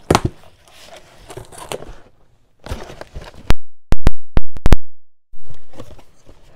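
Cardboard shipping box being opened by hand: its flaps scrape and rustle, with a quick run of five or six sharp, very loud knocks just past halfway.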